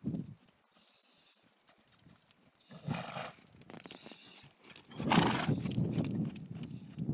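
Hoofbeats of a ridden horse on the dirt of a round pen: faint at first, a brief louder rush about three seconds in, then louder and denser from about five seconds in as the horse passes close.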